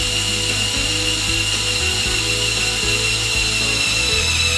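Small electric motor and plastic gearing of a Mould King 13107 brick-built crane truck whining steadily as it drives the outriggers down, the pitch sinking slowly. Background music plays underneath.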